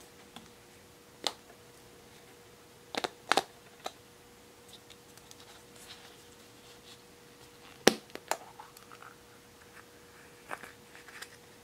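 A hollow plastic surprise egg being handled and pulled open: scattered sharp clicks and knocks of hard plastic with light rubbing between them, the loudest a crack about eight seconds in as the two halves come apart.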